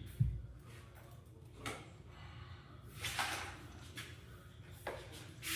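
Handling noises from assembling an electric dirt bike with hand tools: a low thump just after the start, then several short, separate scrapes and rustles.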